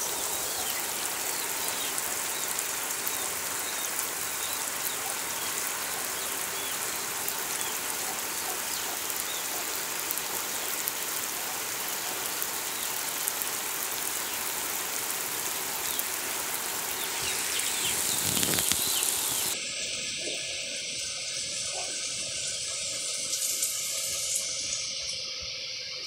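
Heavy rain pouring down onto flooded ground, a dense, steady hiss. About three-quarters of the way through it abruptly thins to a higher, lighter hiss.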